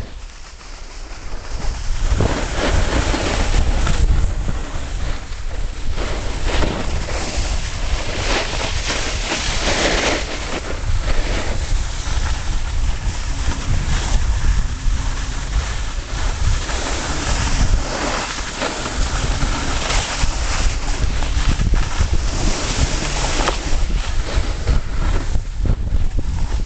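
Wind buffeting the microphone while riding fast downhill, with the hiss and scrape of a snowboard sliding over packed snow, swelling and easing with the turns.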